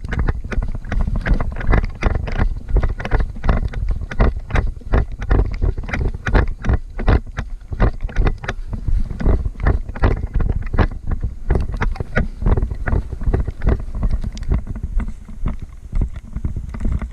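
Footsteps and gear jostling of a player moving quickly over wet ground, picked up by a body-worn camera: uneven thumps about three times a second over a heavy low rumble of handling noise.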